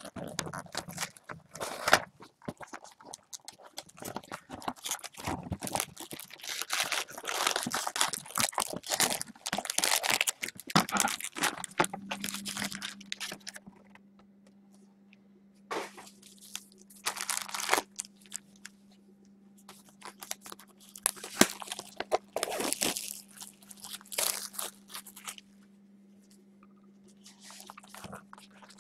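Plastic wrapping being crinkled and torn close to the microphone, dense and irregular for the first half, then in short scattered bursts. A low steady hum comes in about halfway.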